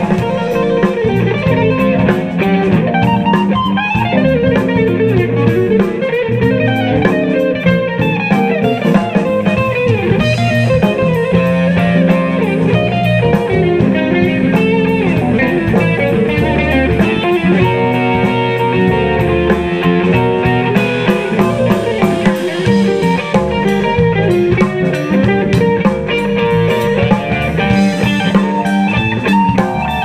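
Live band playing an instrumental jazz-funk fusion tune: electric guitar with bass guitar, drum kit and keyboard, with a steady fast cymbal pattern.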